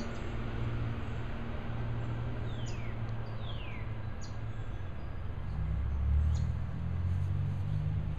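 Backyard ambience: a steady low rumble with small wild birds chirping, including two falling whistled calls about three seconds in.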